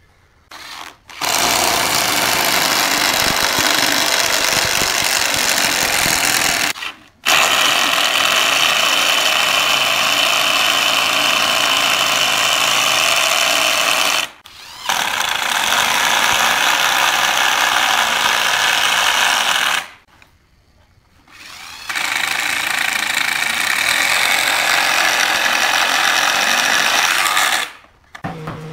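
Corded electric drill boring through pallet wood with a long bit, running in four long stretches of several seconds each with brief stops in between.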